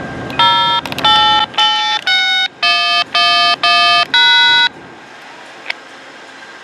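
A short electronic tune of about eight clean beeping notes, each under half a second, stepping down in pitch and jumping back up on the last note, then stopping. Phone-like beeps rather than a train horn.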